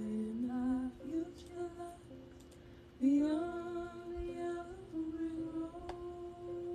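A woman singing a slow melody with gliding notes, the loudest entry about halfway through sliding up into a long held note.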